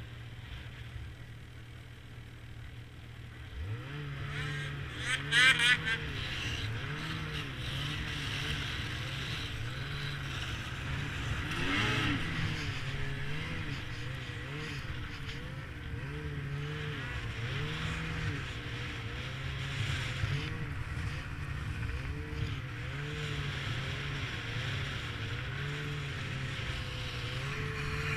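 Snowmobile engine running at a steady low idle, then opening up about four seconds in and rising and falling in pitch with the throttle as it rides. Just after it opens up there are a couple of brief, loud, high-pitched sounds.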